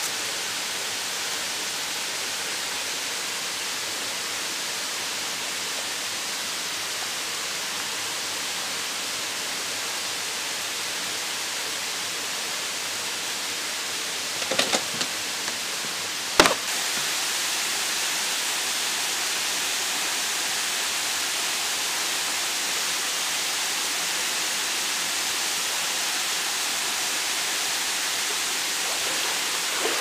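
Steady rush of a waterfall and stream, with a couple of brief sharp knocks about halfway through.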